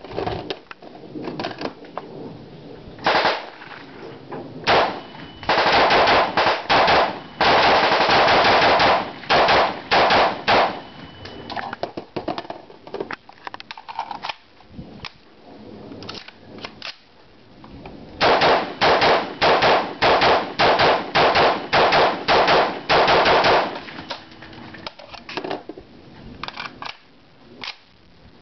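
Short-barrelled POF-USA P308 .308 rifle firing two long strings of rapid semi-automatic shots, about three a second, with fainter scattered shots between the strings.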